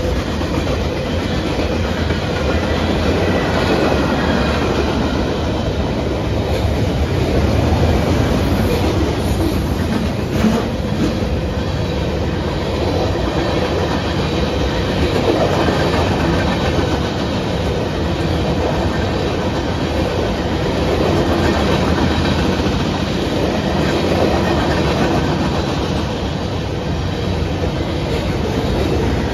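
Freight cars of a Norfolk Southern manifest train, tank cars and gondolas, rolling steadily past a grade crossing: a continuous noise of steel wheels on the rails.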